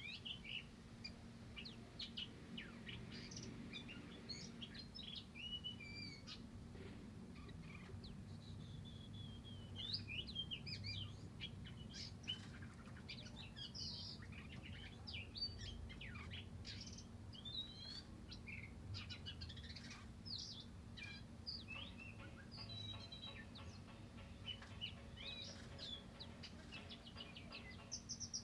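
Cucak wilis and flamboyan songbirds in an aviary singing: a continuous, varied stream of short chirps, whistled notes and quick warbling phrases, over a faint steady low hum.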